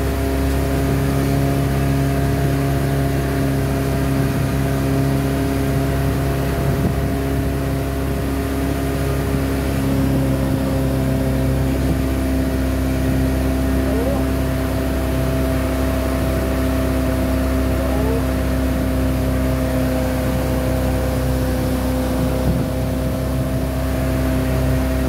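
Motorboat engine running steadily while the boat is under way, a constant hum made of several steady tones that holds the same pitch throughout.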